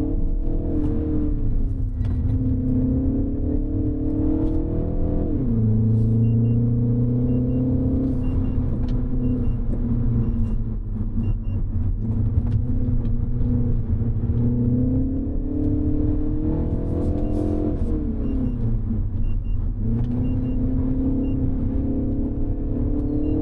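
Turbocharged four-cylinder engine of a 2025 Mini Cooper S pulling under way. Its revs climb, drop sharply at a gear change about five seconds in, climb again, then ease off in two steps near the end.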